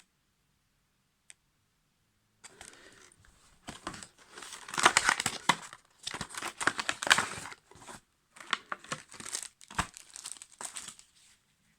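Packaging being crinkled and torn open while a new flashlight is unboxed, in irregular rustling bursts. It starts about two seconds in and is loudest in the middle.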